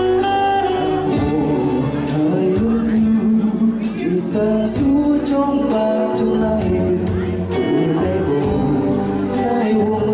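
Band music with a steady beat and a singing voice over it.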